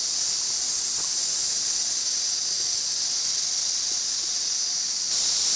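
Steady high-pitched drone of insects, growing louder about five seconds in.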